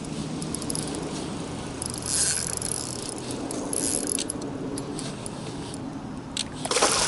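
Spinning reel being cranked against a hooked peacock bass, its gears whirring and ticking, with a louder splash from the fish near the end.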